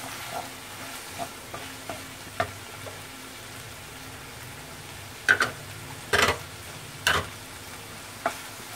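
Minced meat frying with a light sizzle in a frying pan while a wooden spatula stirs it, with scrapes and short sharp knocks against the pan; the three loudest knocks fall between about five and seven seconds in.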